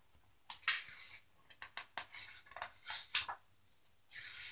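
Paper rustling and light clicks as the pages of a hardcover picture book are handled and turned. A longer swish about four seconds in is the page turning over.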